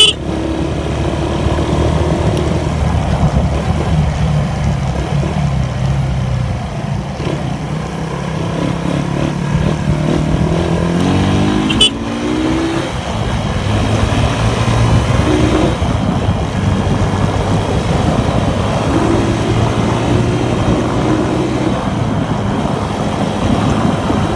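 Suzuki Raider 150 carbureted motorcycle engine running under way, its pitch rising steadily as it accelerates about halfway through. A sharp click right at the start and another about twelve seconds in.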